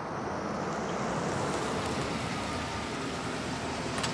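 A Higer tour coach running as it pulls up, heard as a steady, even noise, with a short click near the end.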